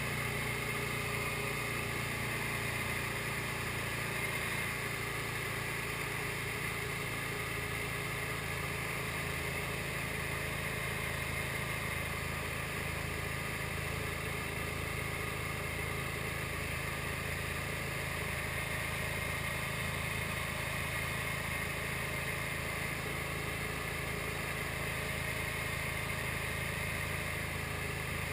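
SD1 Minisport light aircraft's engine and propeller running at a steady, unchanging drone in flight.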